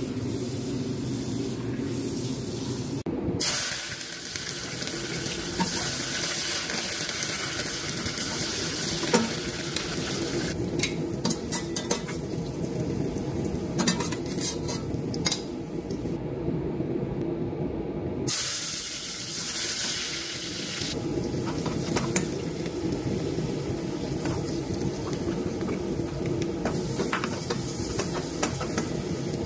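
Sliced onions sizzling in hot oil in a stainless steel pot on a gas burner, with a spoon scraping and clinking against the pot as they are stirred.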